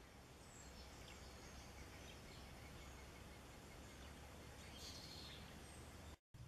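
Faint outdoor background with a steady low rumble and a few short, distant bird chirps. It drops out briefly near the end.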